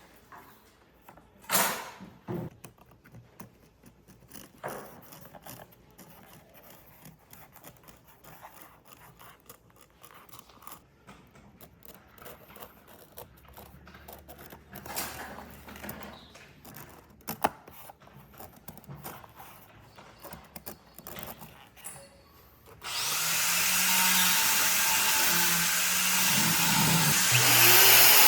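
Quiet, scattered knocks and taps of tools and wood being handled, then about three quarters of the way through a handheld power tool starts and runs loud and steady with a high whine.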